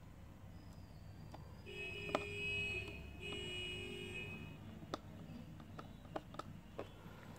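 Two electronic beep tones, each about a second long, sound one after the other about two seconds in over a low steady hum. Several small sharp clicks of tools on the workbench follow in the second half.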